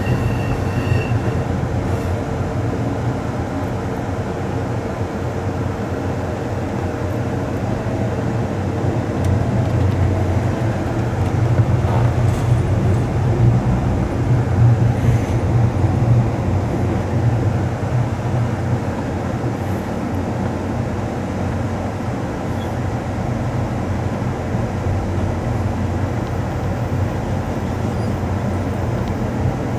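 Amtrak Coast Starlight passenger train running along the track, heard from inside its rear car: a steady low rumble of wheels on rail that grows a little louder for a few seconds near the middle.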